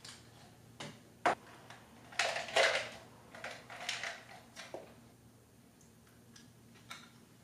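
Plastic gum container handled: a sharp click of the lid about a second in, then gum pieces rattling as they are shaken out into a hand, followed by a few softer clicks and taps.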